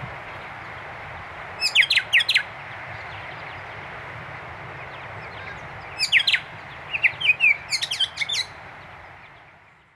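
Honeyeater calling in quick runs of sharp, falling chirps, a short run about two seconds in and a longer one from about six seconds, over a steady outdoor hiss that fades out at the end.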